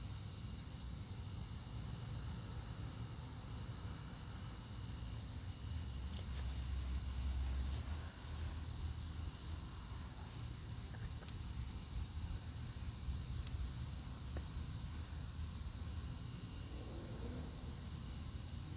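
Crickets chirping in a steady night chorus, with a low rumble that swells about six seconds in and fades by eight.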